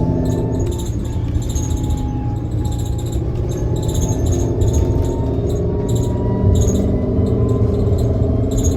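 Inside a 2015 New Flyer XT60 electric trolleybus on the move: a steady low road rumble under a faint electric traction-motor whine that rises slowly in pitch, with short high chirps repeating throughout.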